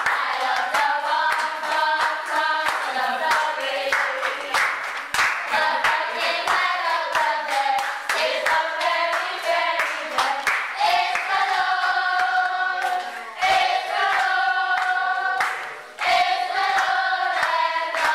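A group of people singing a song together while clapping their hands in time.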